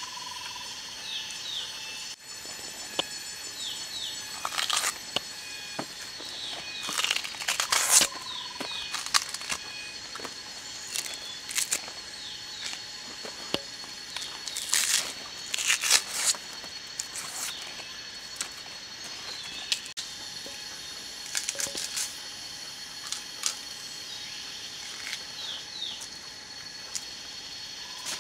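Dry plant material crackling and rustling in short bursts as it is torn and peeled by hand, over a steady high drone of forest insects and repeated short bird chirps.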